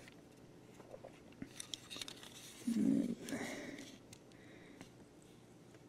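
Faint handling noises from a calculator's plastic case and keypad assembly being lifted by hand: a few small clicks and rubs, with a brief, somewhat louder low sound about three seconds in.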